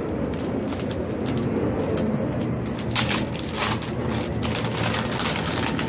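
Rustling and light clicks of items being handled in their packaging, clustered around the middle, over a steady low hum.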